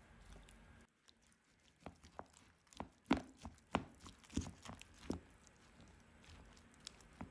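Wooden spoons clacking and scraping in a large bowl as bibimbap with fried eggs and gochujang is mixed: a run of uneven sharp clicks and soft squelches about two to five seconds in.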